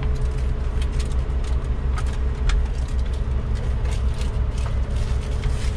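Diesel engine of a Scania K440IB double-decker coach idling, a steady low throbbing rumble heard from inside the cabin, with a few faint clicks over it.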